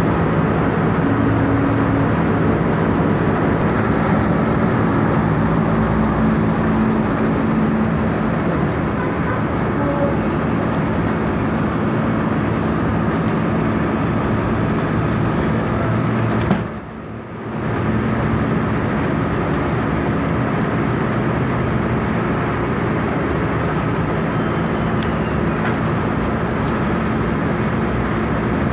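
A truck engine idles with a steady low drone. The sound dips briefly about seventeen seconds in, then carries on.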